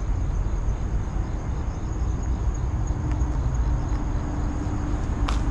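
Outdoor ambience: a steady low rumble with a thin, steady high-pitched insect trill above it, and one sharp click near the end.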